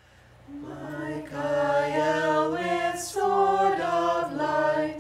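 Unaccompanied voices singing in harmony, fading in at the start, with held notes that change about once a second.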